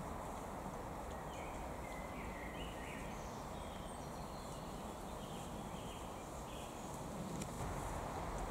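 A wild boar piglet roots in dry leaf litter, with a few sharp crackles of leaves over a steady low background noise. Faint short bird calls come in the middle.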